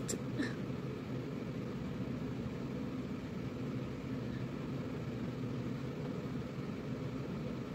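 Steady low background hum of room noise with no words, unchanging throughout, and one faint click about half a second in.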